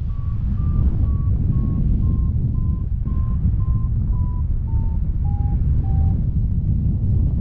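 Paragliding variometer beeping about twice a second, a sign of climbing in lift; the pitch rises slightly and then drops as the climb weakens, and the beeps stop about six seconds in. Under it, steady wind noise on the microphone from the airflow in flight.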